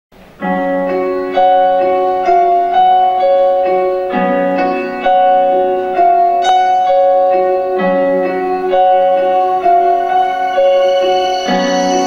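Piano introduction from a recorded backing track: a melody over chords, with a new note or chord about once a second.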